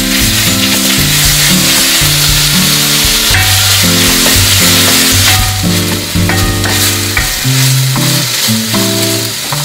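Salted cucumber slices sizzling loudly as they stir-fry in an enamelled pan, turned now and then with a wooden spatula. Background music plays underneath.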